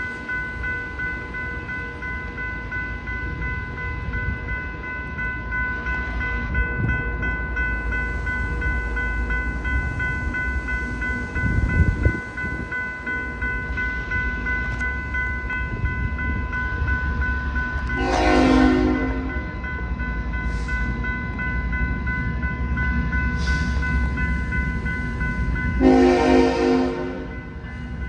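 Grade-crossing warning bell ringing steadily over the low rumble of an approaching diesel freight train, whose horn sounds two blasts, the second a little longer.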